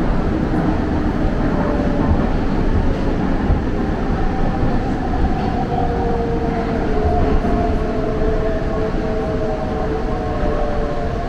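Metro train running at speed through a tunnel, heard from inside the carriage: a loud, steady rumble with whining tones that drift slightly in pitch.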